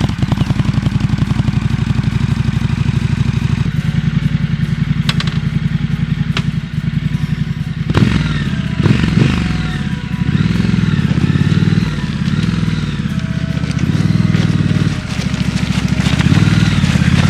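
Triumph Scrambler 1200 XE's 1200 cc parallel-twin engine running steadily. From about eight seconds in, its pitch rises and falls again and again as the engine speed changes.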